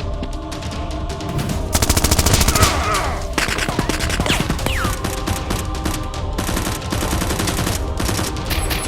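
Rapid automatic gunfire sound effects over action background music, with the densest, loudest burst about two seconds in, lasting about a second and a half.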